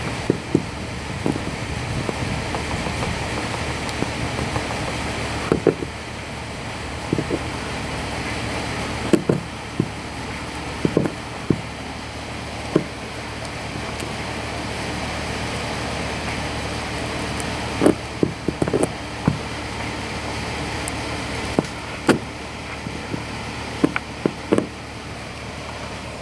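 Light irregular taps and scrapes of a plastic welding iron's hot foot working over a melted polyethylene weld bead, over steady background noise.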